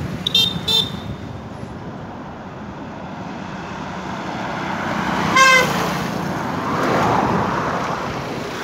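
Honda brush cutter's small engine running steadily, while a horn gives two short high beeps near the start and one louder toot about five seconds in, with passing road traffic.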